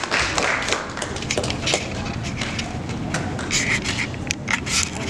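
Audience applause dying away into scattered claps and taps, with voices of people in the crowd.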